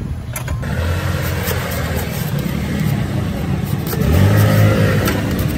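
A motor vehicle engine passing close by in street traffic, loudest about four seconds in.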